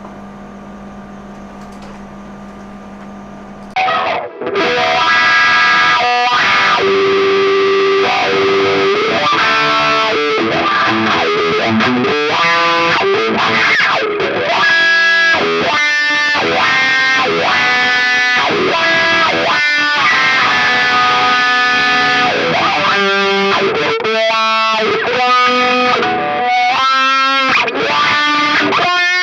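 A steady hum for about the first four seconds, then distorted electric guitar played through a Dunlop GCB95 Cry Baby wah pedal. Its tone sweeps up and down as the pedal rocks, most plainly near the end.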